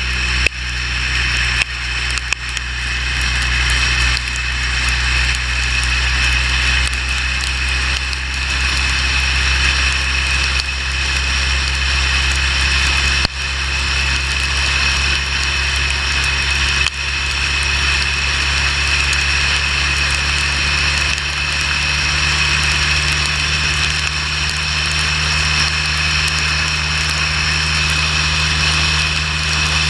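Motorcycle engine running steadily at highway speed under a constant hiss of wind and road noise. Its low note shifts slightly a little past halfway, with two brief dips in level before that.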